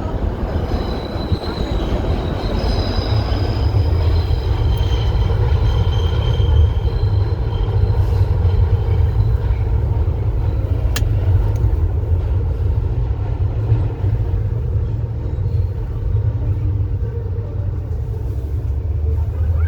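A subway train running past, a continuous heavy rumble with high steel wheel squeal over the first several seconds.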